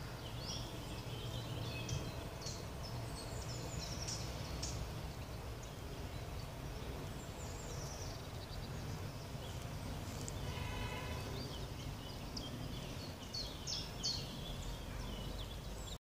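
Wild songbirds singing and calling in woodland: short high chirps and trills scattered throughout, with a harsher, buzzier call a little past the middle, over a steady low background rumble.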